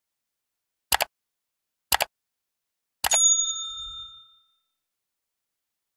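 Sound effects of a subscribe-button animation: two short mouse clicks about a second apart, then another click followed by a bright bell ding that rings out for about a second.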